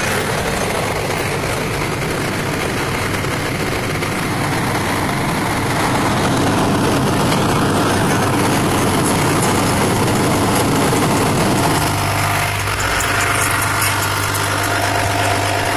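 A fire engine's diesel engine idling, heard up close at the front of the truck. About twelve seconds in, the sound settles into a steadier low hum.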